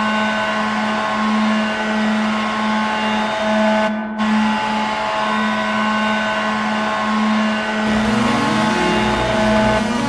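Ice hockey arena goal horn blaring one long, steady blast, with a brief break about four seconds in. Goal-song music starts under it near the end.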